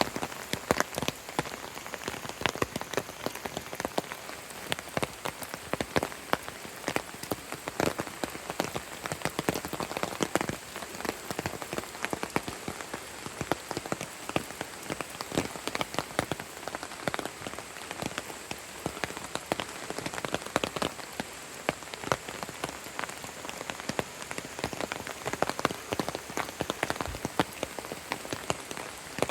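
Steady rain falling, with many close drops landing in irregular sharp taps over a constant hiss.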